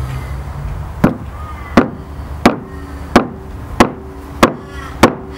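Metal meat mallet pounding abalone meat through a cloth on a wooden chopping board, tenderising it: seven even, sharp knocks starting about a second in, roughly three blows every two seconds.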